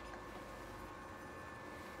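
Quiet room tone with a faint steady hum and no distinct sounds.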